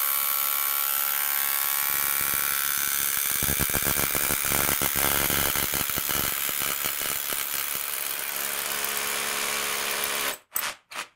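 Panasonic EXENA EZ1HD1 18 V cordless hammer drill with built-in dust extraction, boring a hole into a concrete block in hammer mode: a steady motor whine over rapid hammer blows, the hammering heaviest in the middle. The drill stops shortly before the end, followed by two short bursts.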